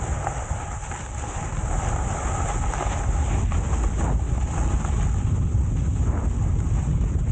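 Wind buffeting the microphone with a steady low rumble, over a continuous hiss like skis or a snowboard sliding on snow.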